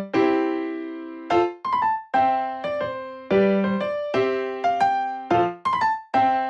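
Background music: a light piano or electric-piano tune with repeated struck notes that fade between strikes.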